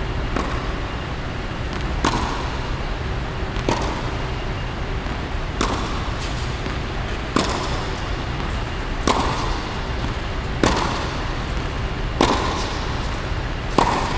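Tennis racket striking the ball, about nine sharp pops at an even pace of roughly one every second and a half, each ringing briefly in the echo of an indoor court, over a steady hum.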